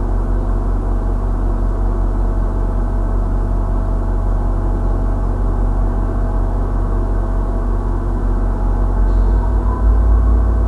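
Steady engine drone at idle, a low hum with several steady tones in it. The lowest notes swell about nine seconds in.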